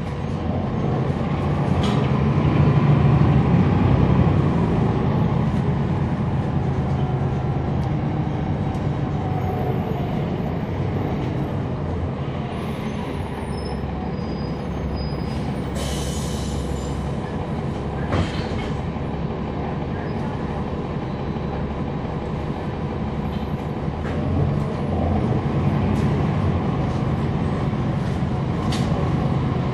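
Inside a 2011 NABI 40-SFW transit bus, heard from the rear seats: its Cummins ISL9 diesel engine and ZF Ecolife six-speed automatic transmission running, with a steady rumble that swells a couple of seconds in and again near the end. There are a few sharp ticks and a brief hiss about halfway through.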